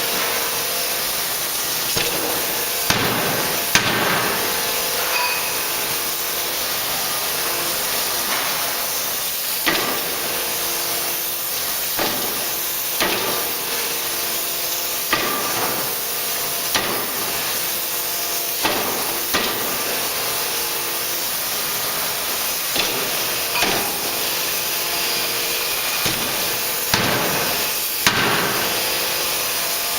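A 75 kJ (3-tonne) die forging hammer striking repeatedly at uneven intervals, roughly one blow every two seconds. A steady hiss runs underneath the blows.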